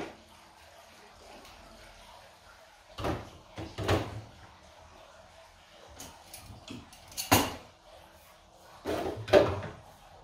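A few sharp clunks and knocks as a container and a glass are picked up and set down on a kitchen countertop, with quiet stretches between.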